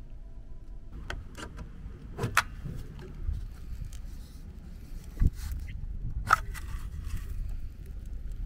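Low wind rumble on the microphone with a few sharp clicks and knocks, the loudest about two and a half, five and six seconds in, as a CCS charging plug is handled.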